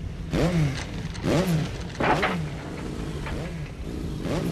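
Suzuki RH125 motorcycle engine revved in short bursts about once a second, each one rising and then falling in pitch.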